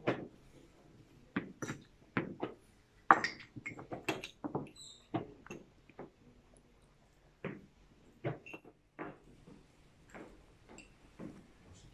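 Chess pieces set down on boards and chess clock buttons tapped in fast blitz play: an irregular series of sharp clicks and knocks, roughly one or two a second.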